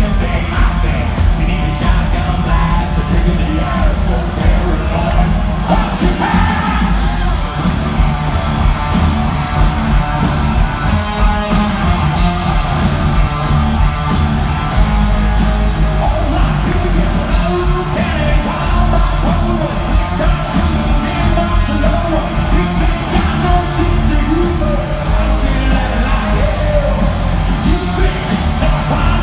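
Live hard rock band playing loud and steady, with heavy drums and bass and a singer's yelled vocals over the band.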